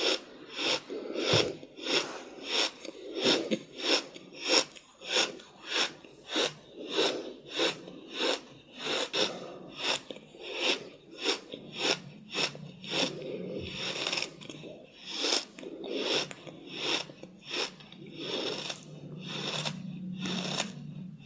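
Very heavy, rapid breathing close to the microphone, a rhythmic rasp of about three breaths every two seconds. A low steady hum joins in about halfway through.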